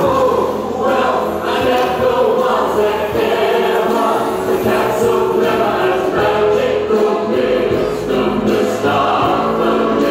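A recorded musical-theatre song played over the hall's speakers: a choir singing over orchestral accompaniment.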